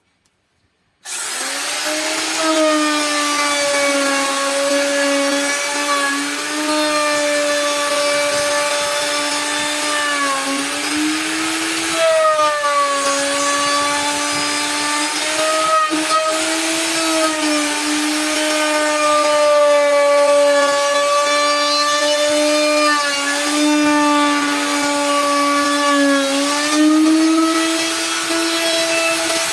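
An electric power tool's motor running steadily on wood, starting about a second in, with a high hum whose pitch sags briefly a few times as the cut loads it.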